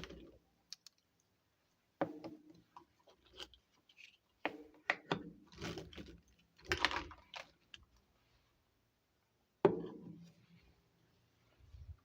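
Small plastic toy kitchen pieces being handled: irregular light clicks and knocks as they tap together and are set down, with short rustles between and brief quiet gaps.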